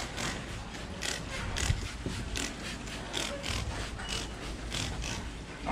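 Trigger spray bottle pumped over and over, each squeeze a short hissing squirt of cleaner onto vinyl boat fenders, about two or three squirts a second.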